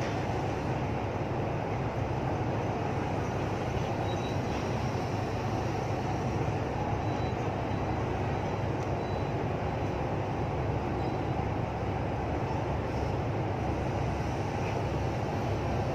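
Marine engines running with a steady low rumble during a harbour tow, as a tugboat pulls a container ship out of port.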